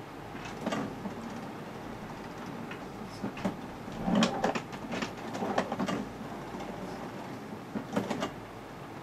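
HP Officejet Pro 8100 inkjet printer's internal mechanism clicking and clunking over a steady hum, in short clusters about a second in, through the middle and again near the end.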